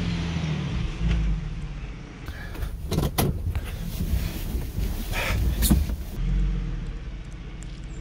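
Ford Transit van's engine running at low speed as the van makes a U-turn on a snowy road, with a few clicks and knocks in the middle.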